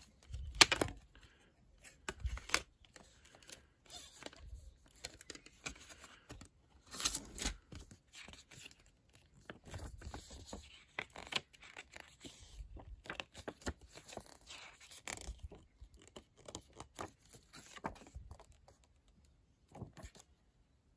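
A plastic CD jewel case and its paper booklet being handled: sharp plastic clicks and scrapes from the case, and paper rustling as the booklet is taken out and its pages are turned. The loudest clicks come about a second in and again around seven seconds in.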